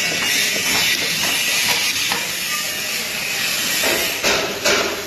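Manual hydraulic pallet stacker being operated after an oil-leak repair: a run of light mechanical clicks, roughly three a second, over a steady hiss, then two sharp knocks near the end.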